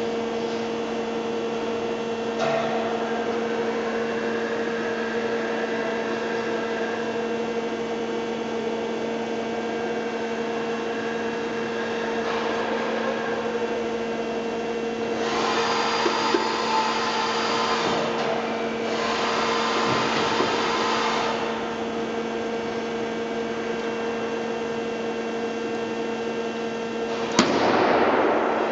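TOS Varnsdorf WH 105 CNC horizontal boring mill running with a steady machine hum. Two stretches of louder hissing noise come about halfway through, and a sharp louder sound comes near the end.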